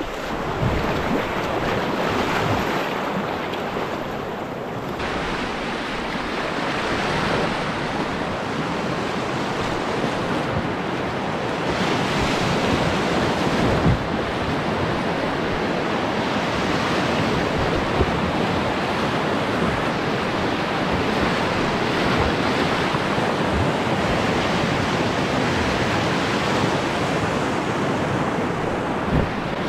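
Flood-high whitewater rapids rushing steadily around a solo canoe running them, with paddle strokes splashing and a few sharp knocks.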